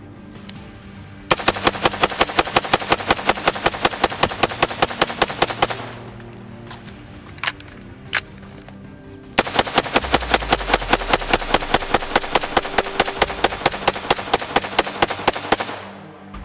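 AR-15 rifle with a 14.5-inch mid-length barrel fired in rapid fire: two long strings of quick, evenly spaced shots, separated by a pause of about three and a half seconds.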